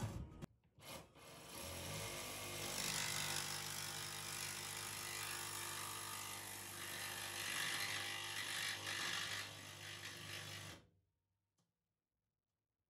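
A power tool cutting into the ambulance box's metal body, running steadily for about ten seconds with a low hum under an even rasping noise, then stopping abruptly.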